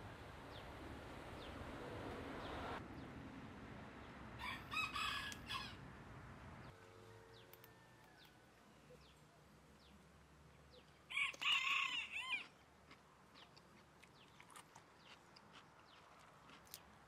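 A rooster crowing twice, each crow about a second long, the second louder, over a low hiss that fades out about six seconds in.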